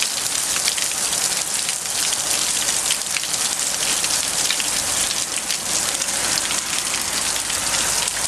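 Heavy hail storm: a dense, steady hiss of hailstones striking the ground and surfaces, thick with many sharp individual ticks.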